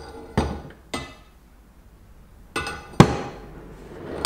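Steel leaf-spring bolts and parts knocking and clanking against the spring leaves on the bench: several sharp metal knocks, the loudest about three seconds in with a brief ring.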